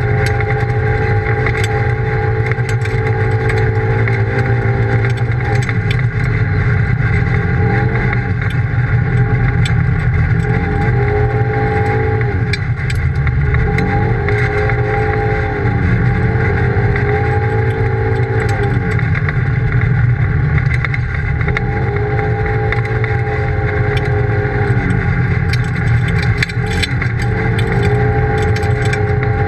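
Polaris RZR side-by-side engine running under way, heard from inside the open cab, its pitch rising and falling every few seconds as the driver accelerates and eases off, over a steady low rumble of driving noise.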